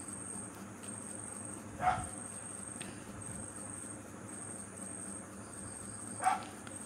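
A cricket chirping steadily in short, high, evenly repeated trills. Two brief knocks come about two seconds in and near the end.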